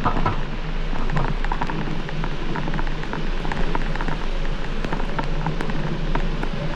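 Rain falling, with many small drop hits close to the microphone over a steady hiss and a low hum underneath.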